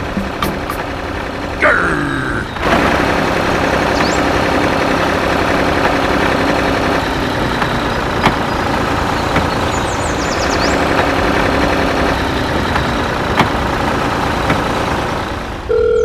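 An engine running steadily, with a brief falling whoosh in the first two seconds.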